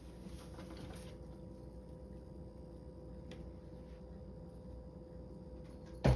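Faint room hum with a steady tone and a light tick partway through, then near the end a sharp thump as a house cat jumps down from the top of a wooden cupboard and lands, followed by a smaller thud.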